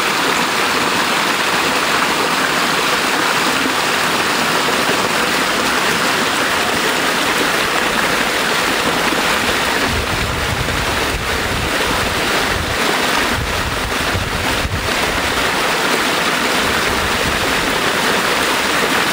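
Small stream cascading over rocks, a close, steady rush of running water. A low rumble joins it for a few seconds about halfway through.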